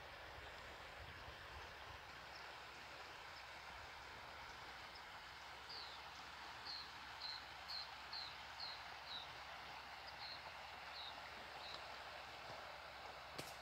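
Faint, steady outdoor background hiss with a bird calling a series of short, high, falling chirps, about two a second, from about six seconds in until near the end. A single sharp click comes near the end.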